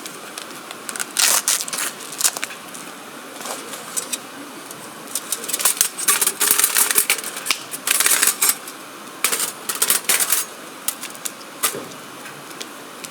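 Irregular rustling and sharp clicks of things being handled, coming in bursts that are busiest in the middle.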